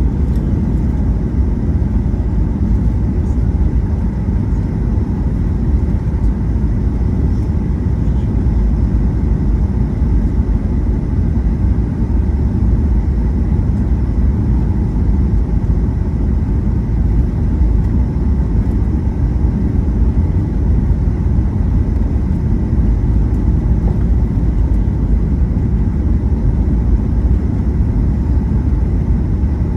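Steady, loud low rumble of an airliner's cabin noise from its jet engines and airflow, unchanging throughout.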